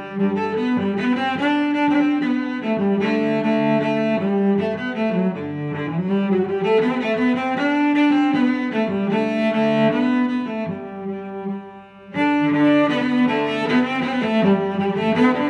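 Background music with slow, held notes and moving melody lines. It thins out briefly about eleven seconds in, then comes back fully.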